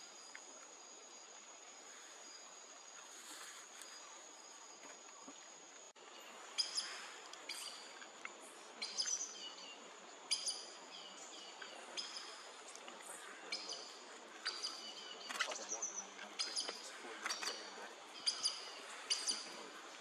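Pale-mandibled aracari calling: a series of sharp, high calls, each sliding downward, about one a second, starting about six seconds in. Before that, only a faint steady high-pitched hum.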